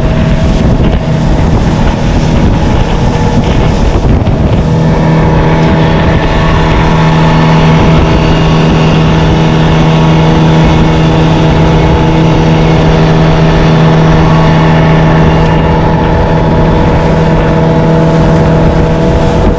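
Outboard motor of a small open boat running at cruising speed, with rushing wind and water over the hull. Its steady engine tone comes up strongly about five seconds in and then holds at an even pitch.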